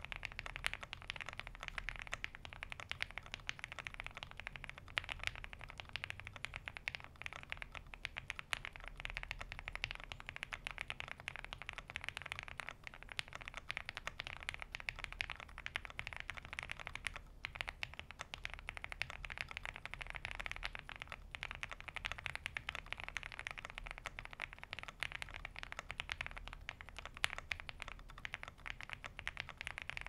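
Continuous fast typing on a Mammoth75 mechanical keyboard fitted with lubed and filmed Gateron Ink Black V2 linear switches on an aluminium plate, with CannonCaps keycaps. It is a dense, unbroken run of keystrokes, with a brief pause about seventeen seconds in.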